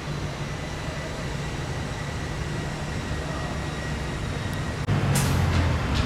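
Street traffic: a steady hum of road noise. About five seconds in, a heavier vehicle's low rumble grows louder.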